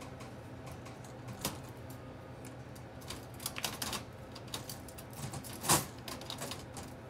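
Metal surgical instruments clicking and clinking against a wire mesh instrument basket as they are handled and set in, in irregular clusters of sharp clicks, with one louder clack near the end.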